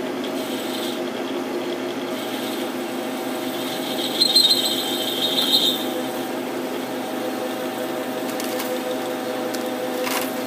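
Metal lathe running with a steady gear hum. About four seconds in, the insert tool cutting the radius on the metal hub gives a high squeal that lasts under two seconds.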